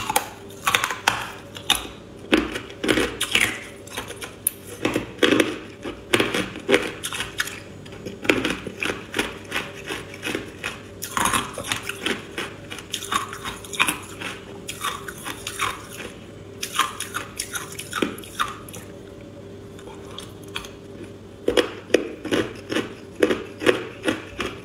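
Hard ice coated in matcha powder being bitten and chewed, giving sharp crackling crunches in irregular runs. There is a quieter pause shortly before the end, then another quick run of crunches.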